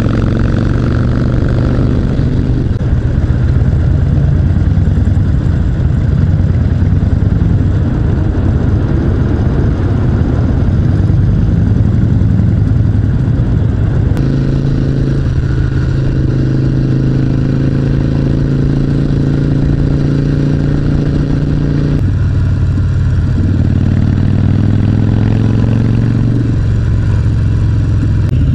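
Harley-Davidson Sportster's V-twin engine running under way at cruising speed, heard from the rider's seat with wind and road noise. The engine note steps abruptly to a new pitch a few times.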